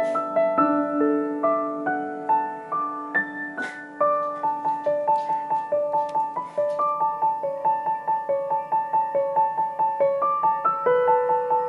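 Soft background piano music: a gentle melody of evenly paced single notes.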